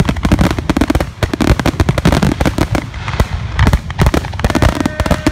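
Grand-finale barrage of aerial firework shells bursting directly overhead: many booms a second overlapping into a continuous rumble, like a top fuel dragster idling. A few steady tones join in near the end.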